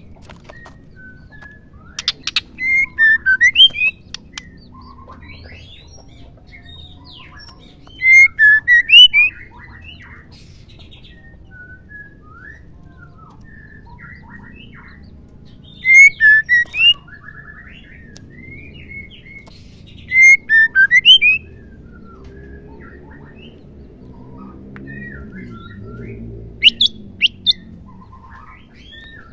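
Female white-rumped shama calling in five short bursts of quick, sharp notes, with pauses of several seconds between them.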